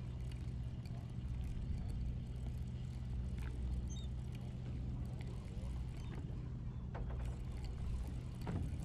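A party fishing boat's engine running with a steady low drone. A few faint knocks come near the end.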